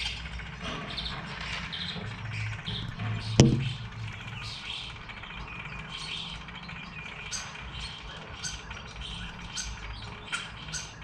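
Birds chirping and calling in quick, repeated short notes, with one sharp click about three and a half seconds in, over a low steady hum.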